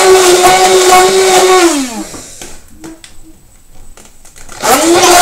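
Electric hand mixer whisking egg whites and sugar for meringue in a metal bowl, running steadily. About two seconds in it is switched off and its pitch falls as it winds down; after a short pause with a few light clicks it is switched back on and spins back up to speed near the end.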